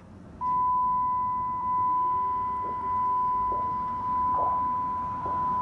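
A steady, single-pitched electronic beep tone, like a test tone, starting about half a second in and held unbroken, over faint background noise.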